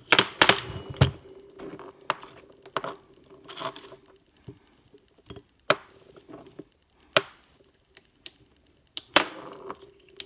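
Steel parts of a dry, grease-free CV axle inner joint clicking and clunking as they are handled: a quick cluster of knocks at the start, then single sharp clicks every second or two, one louder clack near the end.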